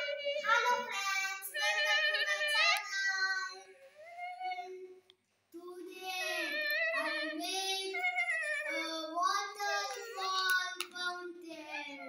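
A child singing in a high voice, with long held, gliding notes and a brief silence about five seconds in.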